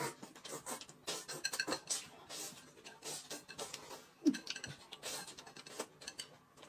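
Faint eating sounds: chopsticks clicking and scraping against a ceramic bowl and plate, with noodles being slurped and chewed.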